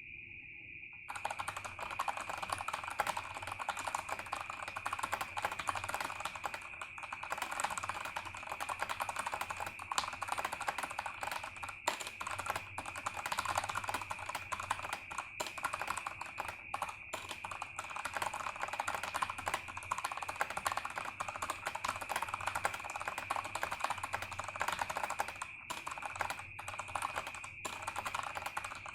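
Fast, continuous typing on a mechanical keyboard: a dense stream of key clicks during a typing test, starting about a second in with a few brief pauses. A steady high-pitched tone runs underneath.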